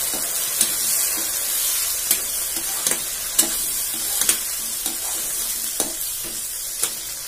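Tomatoes, onion, garlic and green chillies sizzling in hot oil in a kadhai, a steady frying hiss. A flat metal spatula stirs them, scraping and clicking against the pan several times at irregular moments.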